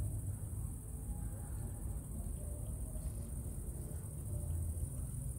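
Crickets chirring in a steady, high-pitched chorus, over a low rumble.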